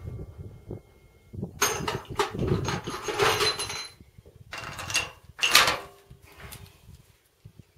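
Metallic clicks, rattles and clanks of a Barrett 99-1 single-shot bolt-action .50 caliber rifle being reloaded after a shot: the bolt worked and a fresh cartridge handled, in two clusters, about two seconds in and again about five seconds in. The echo of the preceding shot is still dying away at the very start.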